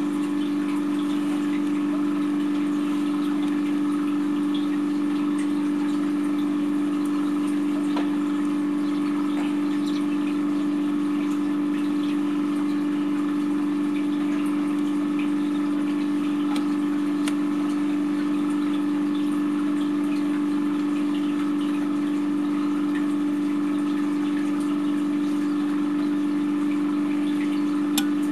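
Egg incubator's fan running with a steady hum at one constant low pitch.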